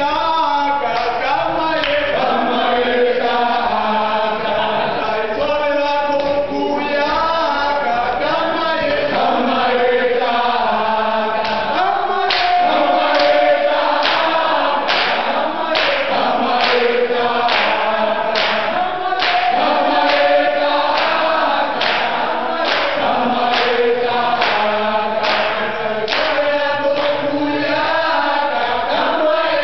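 A group of students singing a political struggle song together without instruments, the voices in unison and chant-like. A steady rhythm of hand claps joins in about halfway through, at a bit more than one clap a second.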